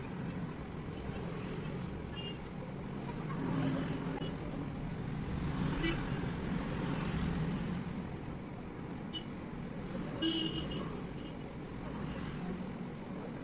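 Steady low background rumble with a few brief faint clicks.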